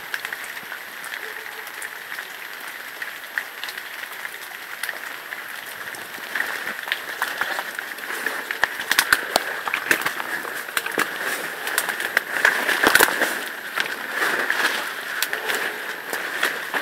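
Footsteps pushing through undergrowth, with twigs, dry stems and branches crackling and snapping against the walker, denser and louder from about six seconds in.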